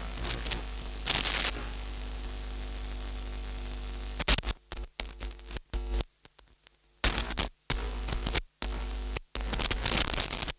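Sci-fi electronic static effect: a hiss over a low hum, held steady for a couple of seconds, then breaking into choppy bursts that cut in and out abruptly.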